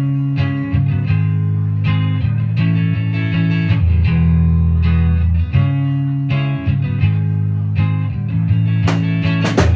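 Live band music: held notes over a loud low bass line, with drum strokes, and sharp cymbal-like hits coming thick near the end.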